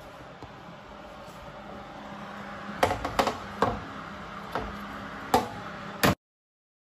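Metal oven baking tray knocking and clattering several times as it is handled and slid along the oven runners, over a steady low hum. The sound cuts off abruptly about six seconds in.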